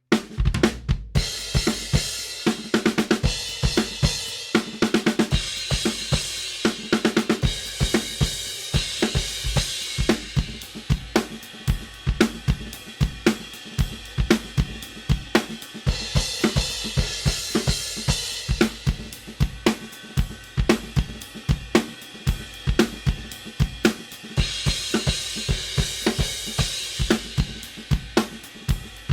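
Drum kit playing a steady groove of kick, snare and hi-hat, with an Istanbul Mehmet IMC crash cymbal struck in several passages and ringing out in long bright washes over the beat.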